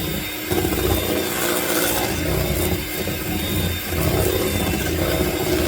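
Electric mixer running steadily, its beaters churning cake batter in a bowl.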